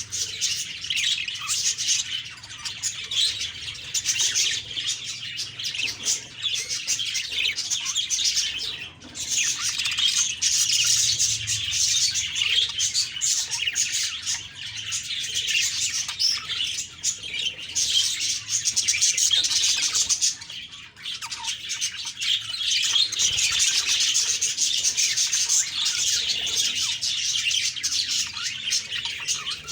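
Budgerigars chirping and warbling without pause, a dense, high chatter that thins briefly twice.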